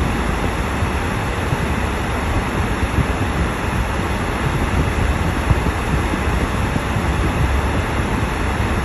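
Steady rumble and hiss of a car driving on a snow-covered street, heard from inside the cabin.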